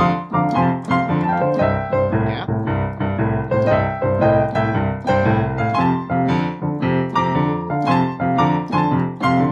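Boogie-woogie piano played on a digital piano: a rhythmic left-hand bass under right-hand chords and a short lick back to C, with a steady beat of evenly spaced note attacks throughout.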